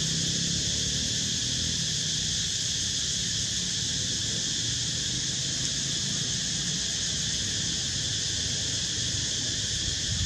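Steady, high-pitched chorus of insects droning without a break, over a low rumble.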